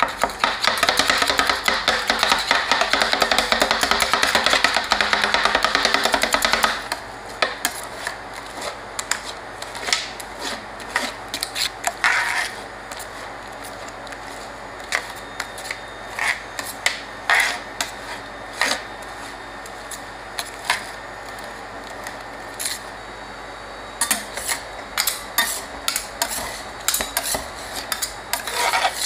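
Background music for about the first seven seconds, then metal spatulas tapping and scraping on the frozen steel plate of an ice cream roll machine as the mixture is spread thin and scraped up into rolls. The taps are sparse at first and come much faster near the end.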